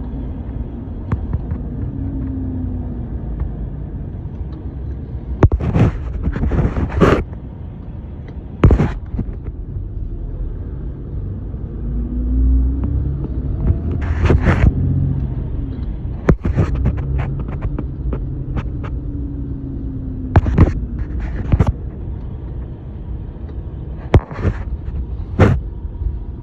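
2018 Ram 3500's 6.7 L Cummins turbo-diesel straight-six running on the road with a new dual-disc clutch. The engine note rises and falls a few times as the truck is driven through the gears, over a steady low rumble. Sharp knocks and clatters are scattered throughout and are the loudest sounds.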